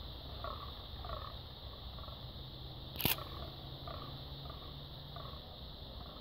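Fallow bucks groaning in the rut: a steady series of short calls repeated every half second or so. A single sharp click about three seconds in.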